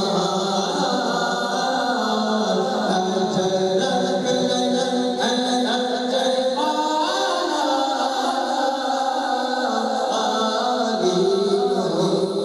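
Male voices singing a devotional naat-style kalam in unaccompanied chant, the melodic lines rising and falling, with a group of voices joining in chorus.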